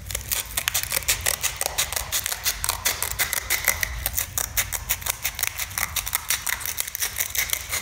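Scissors cutting through a sheet of sandpaper: a continuous run of short, crisp snips, several a second, as the blades work along the strip.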